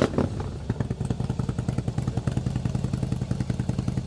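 2016 Harley-Davidson Fat Boy Special's 1690 cc V-twin idling through a Penzl flap exhaust, a steady, even beat of exhaust pulses. There is a brief louder burst at the very start.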